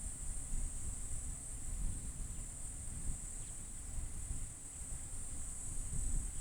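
Insects shrilling in one steady, high-pitched drone, over a low, uneven rumble.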